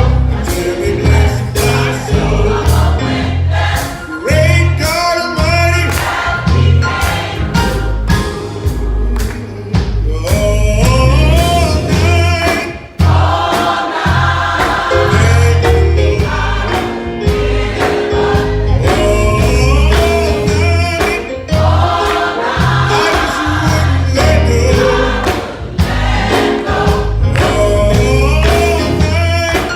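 Choir singing a gospel song over an instrumental accompaniment with a steady beat and strong bass.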